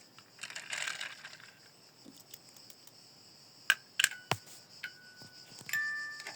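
Light clicks, taps and rustling of small toy construction vehicle models being handled, with a few sharp clicks in the middle. A few faint chime-like notes ring near the end.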